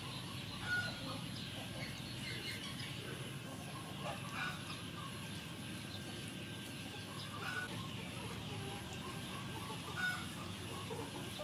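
Kitchen knife cutting through boiled pork belly onto a wooden board, with a few short bird calls in the background, about a second in and again near the end.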